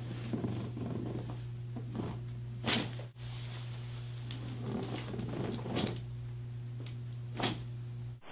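Steady low hum with three brief, sharp clicks or knocks, about three, six and seven and a half seconds in.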